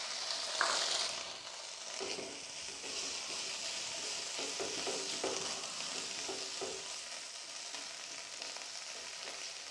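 Boiled potatoes and peas sizzling in hot oil in a nonstick frying pan, stirred with a spatula that scrapes across the pan. The sizzle is a steady high hiss, a little louder about half a second to a second in.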